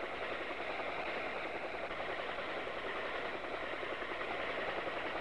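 Faint, steady engine-like drone with an even rushing quality and no distinct events.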